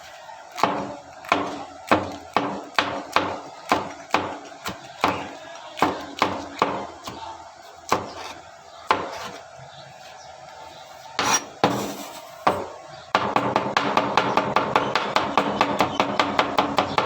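Hammer blows on the knife workpiece, sharp separate strikes about two or three a second, then a pause with a few scattered hits. Near the end the hammering turns into a fast, continuous run of quicker taps.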